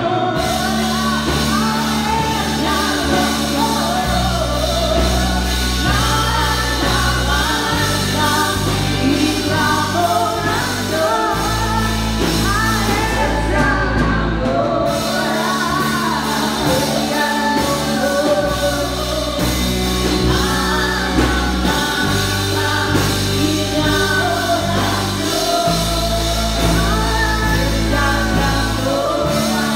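Live gospel worship song: a woman sings into a microphone over a band with drums and guitar, amplified through a PA. The bass notes change every two to four seconds.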